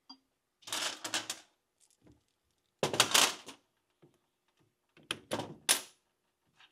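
Small metal hardware and tools handled on a steel workbench: three bursts of clattering and rattling, like sockets and bolts being picked out.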